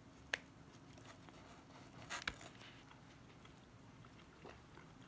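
Faint chewing of a mouthful of pulled pork, with a few soft clicks: a sharp one about a third of a second in and a short cluster a little after two seconds.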